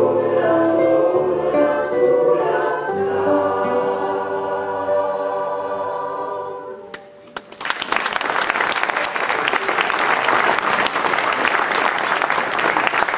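Mixed choir singing the last held chords of a traditional Zulu lullaby, which fade out about halfway through. Then an audience breaks into steady applause.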